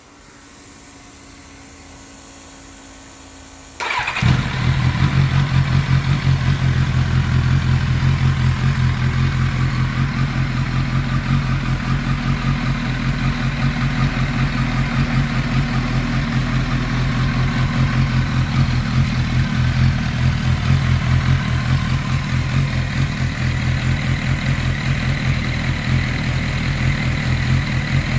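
Turbocharged, fuel-injected 1991 Kawasaki ZXR750 inline-four starting about four seconds in, after a faint steady hum, then settling into a steady, even idle. The idle is freshly sorted: the throttle bodies have been synchronised and the fuelling and ignition (about 18 degrees at idle) set by ear, and it idles better than it probably ever has.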